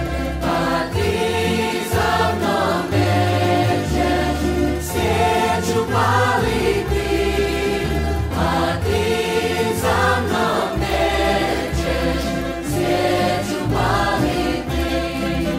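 Croatian folk song by a folklore ensemble: a choir of voices singing together over instrumental backing with a moving bass line.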